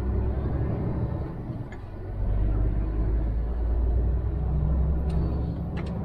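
Heavy semi-trailer truck's diesel engine running on the move, a steady low rumble heard from inside the cab. The engine note dips briefly about two seconds in, then picks up again.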